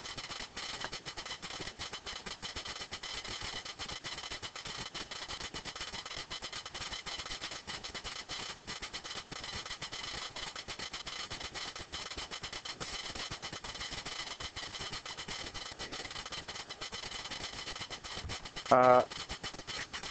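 Quiet room tone: a steady hiss, broken near the end by one short spoken sound.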